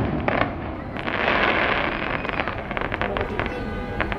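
Fireworks going off: a rushing burst about a second in, then a run of sharp crackles.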